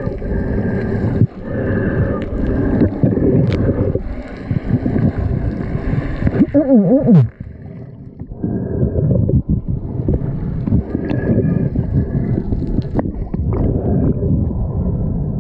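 Water sloshing and gurgling around a waterproof-housed action camera at the sea surface: a steady churning rush with occasional knocks. About seven seconds in, a short wavering whine falls in pitch.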